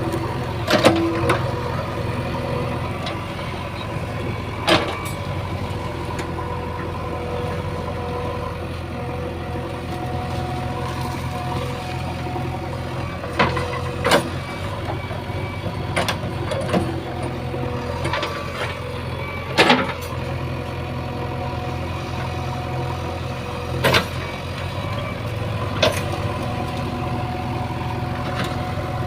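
JCB 3DX backhoe loader's diesel engine running steadily while it works, with about ten sharp knocks scattered at irregular intervals.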